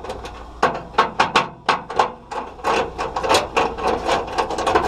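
Rapid, irregular metallic clicking and knocking of a hand tool working loose the mounting screws on a range hood's fan motor.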